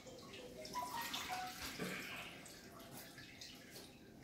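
Water being squeezed out of a string mop in a trolley's press wringer, trickling and dripping into the bucket below; faint.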